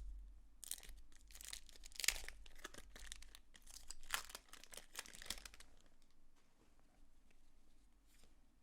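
A foil-lined baseball card pack being torn open and its wrapper crinkled: a dense run of crackling for about five seconds, dying down to faint rustles near the end.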